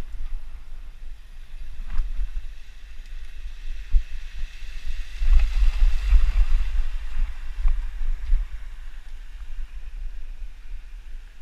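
Mountain bike rolling over a dirt trail, with a low wind rumble on the bike-mounted camera's microphone and a few knocks from bumps. About five seconds in, the tyres splash through a shallow rocky creek crossing, the loudest stretch, for about two seconds.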